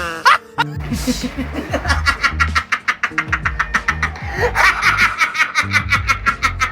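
A person laughing in quick, rhythmic bursts of about five a second over background music with a low, steady bass line.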